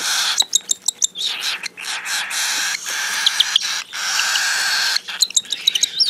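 Cockatiel chicks giving raspy, hissing food-begging calls in repeated stretches, with a few short high chirps a little over three seconds in.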